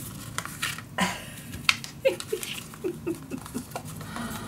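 Sheet of thick watercolour paper being picked up and handled on a tabletop: light rustling with scattered taps and clicks. A run of short, faint, falling squeaks comes in the middle.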